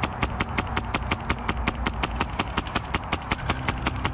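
Suppressed Polarstar HPA-powered HK416 airsoft replica firing a steady string of shots, about seven a second, each a sharp click.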